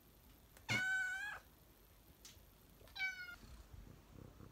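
Domestic cat meowing twice, a longer meow followed by a shorter one, begging for its food.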